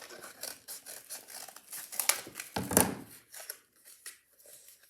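Plastic toy packaging crinkling and crackling as it is handled and worked open, with a louder rustling bump about halfway through.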